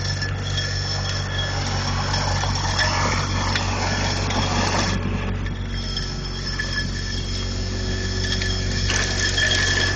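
Mud Dog hydro excavator's vacuum system running steadily, with a low drone and a high whine, as soil and gravel rush up the suction tube while a water lance loosens them. The rushing swells for a couple of seconds in the middle.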